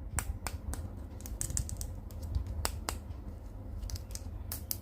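Irregular sharp clicks and taps of an action figure and its plastic packaging being handled during unboxing.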